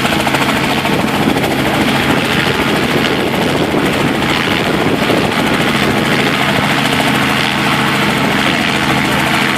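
Helicopter engine and rotor running loud and steady, with a constant low hum under a broad rushing noise, as it gets ready for takeoff.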